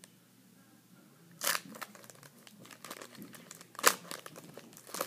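Foil trading-card pack wrapper crinkling and tearing as it is opened, in a few sharp bursts with smaller crackles between, the loudest about four seconds in.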